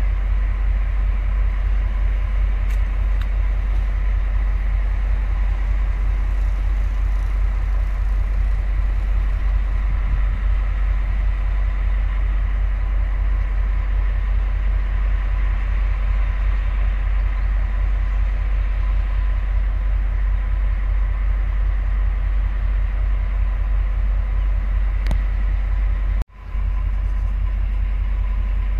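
Taiwan Railway R100-class diesel-electric locomotives running, a steady low rumble with a fine regular throb. The sound cuts out for a moment near the end.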